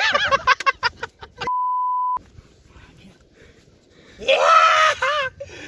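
A steady electronic censor beep, one pure high tone lasting under a second, about a second and a half in. It sits between high-pitched, wavering shouts and cries: a short burst at the start and a louder one near the end.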